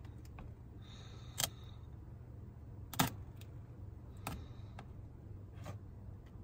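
Four short sharp clicks spread over a few seconds, the one about three seconds in the loudest, over a steady low hum.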